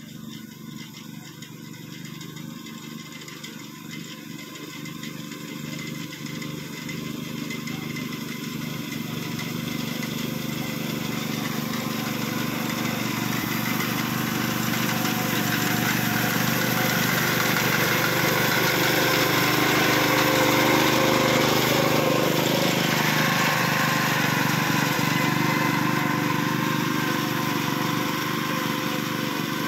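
Honda walk-behind paddy reaper's small petrol engine running steadily as the machine cuts standing rice, growing louder as it approaches, loudest about two-thirds of the way through, then easing slightly.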